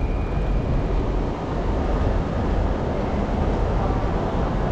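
Steady low rumble and hiss of a Brompton folding bike rolling over a station floor, picked up through its handlebar-mounted camera.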